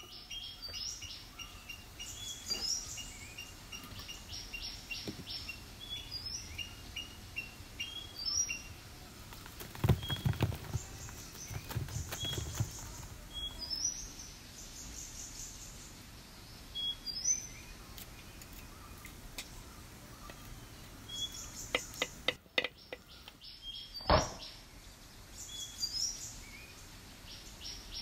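Small birds chirping and trilling over and over in short, high calls. A few dull thumps come about ten seconds in, and a sharp knock comes near the end.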